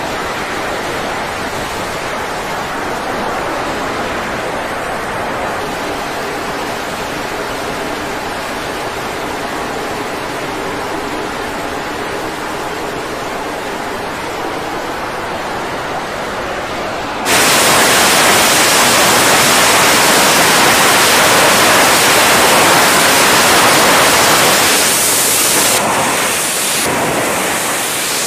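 Jet engines of F/A-18 fighters on an aircraft carrier's flight deck, a steady rushing noise with a faint hum in it. About 17 seconds in it jumps abruptly louder and hissier, the sound of a jet at full power for a catapult launch.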